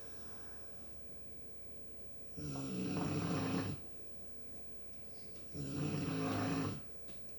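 Snoring: two long snores about three seconds apart, each a little over a second long, with a low pitched drone.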